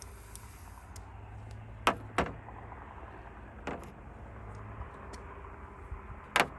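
Several sharp clicks and knocks of hand tools and parts being handled while a tiller's plastic gas tank is unfastened, the loudest about two seconds in and near the end, over a low steady hum.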